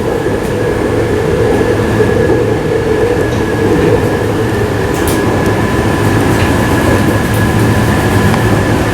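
Cabin noise of an MTR IKK-train running on the Tuen Ma line: a steady rumble with a thin, constant high tone above it.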